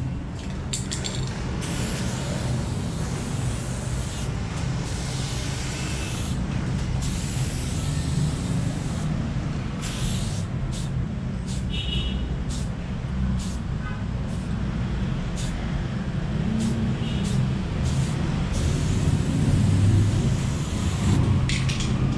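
Aerosol spray paint can hissing in on-and-off bursts, each one to a few seconds long, as lines are sprayed onto a wall, over a steady low rumble.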